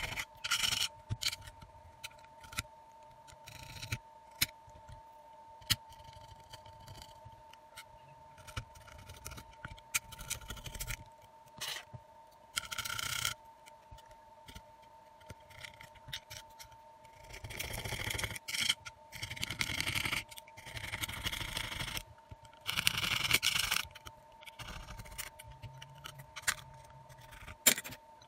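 A thin metal scraper working around a phone's plastic midframe, scraping residue off it in short, irregular strokes with sharp clicks as the tool knocks against the frame. A faint steady hum runs underneath.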